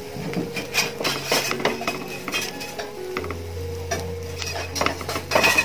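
Metal spoon clinking and scraping against bread and a nonstick frying pan while masala is spread over the slices: a run of short, irregular clicks and scrapes.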